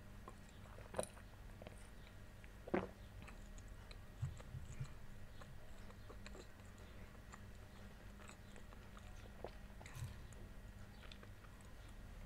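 Faint close-miked mouth sounds of drinking and swallowing: soft wet clicks throughout, with two sharper knocks about a second and nearly three seconds in, and a few soft low gulps later.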